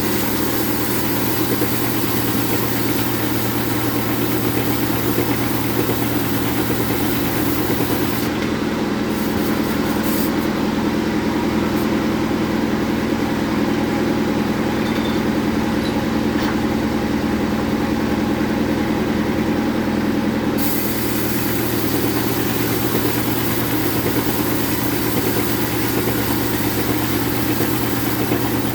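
Band sawmill running with a steady machine hum while sawing jengkol wood. The high hiss drops away for about twelve seconds in the middle while the low hum stays the same.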